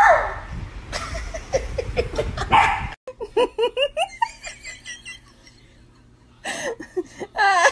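Small dogs barking and vocalising at each other, opening with one sharp yelp-like bark, then short bursts of human laughter.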